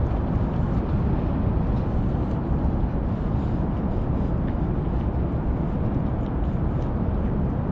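Cat eating wet food from a metal dish, with faint small wet clicks from its licking and chewing, under a loud, steady low outdoor rumble.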